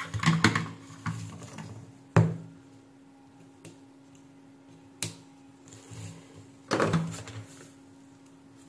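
Tools and a power-supply circuit board being handled on a workbench: a few scattered knocks and clicks, the sharpest about two seconds in and a heavier one near the end, over a faint steady hum.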